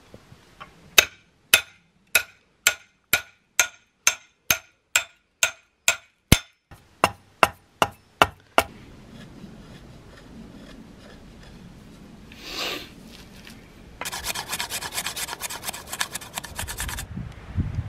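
Hatchet chopping along a wooden bow stave, about two sharp strokes a second for some seven seconds. Later, for about three seconds near the end, a blade scrapes the stave in quick, dense strokes.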